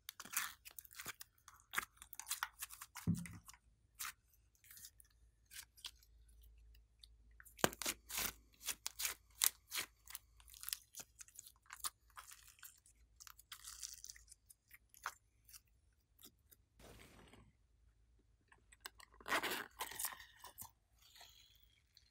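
Hands squishing and stretching sticky slime, giving a dense run of wet clicks and crackles. Near the end there is a longer rustle as small foam beads are poured onto the slime.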